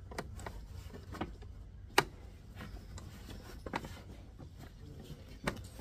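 Scattered light metallic clicks and taps of wiper linkage parts being worked into place in the cowl, one sharp click about two seconds in.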